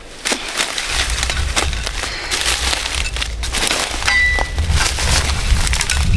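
Irregular crunching and snapping of dry plant material, like leaves and stalks being crushed and broken, with a low rumble coming in about a second in.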